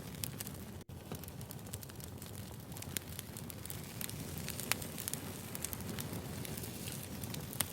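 Wood fire burning: a steady low rumble of flames with irregular sharp crackles and pops from the firewood, broken by a momentary dropout about a second in.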